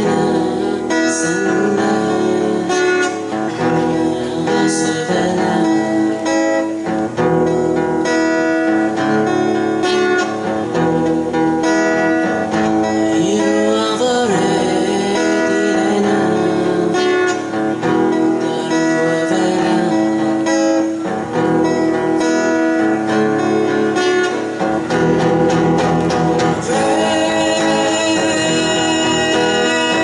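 Two acoustic guitars strummed and picked in an amplified live song, with a man singing the melody into a microphone.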